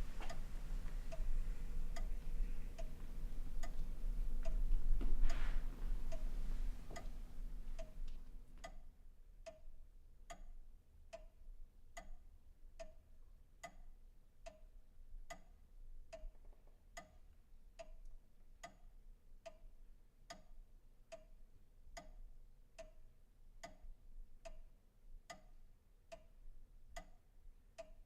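Steady clock-like ticking, about three ticks every two seconds. A low hum and a steady tone sit under it for the first eight seconds, with a brief louder rustle about five seconds in; then the hum drops away and the ticks go on alone.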